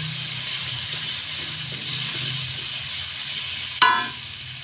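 Spice paste with salam and kaffir lime leaves frying steadily in an aluminium wok while a wooden spatula stirs it, with a continuous sizzle. Near the end comes one sharp knock that rings briefly.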